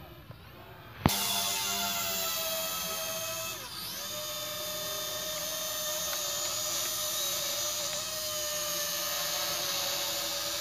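Small toy camera quadcopter's electric motors and propellers whining in flight overhead, a high buzzing whine. It gets much louder about a second in, and its pitch dips briefly and recovers a little later as the throttle changes.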